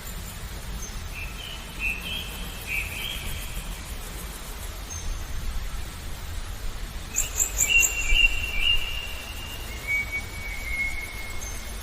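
Small songbirds chirping in short twittering phrases over the steady rush of flowing water, with the busiest, loudest bout of song about seven to nine seconds in.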